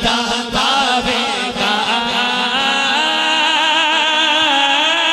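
Male voice singing a naat (Islamic devotional song) through a microphone, with regular hand claps in the first second and a half, then a long held note with a wavering pitch.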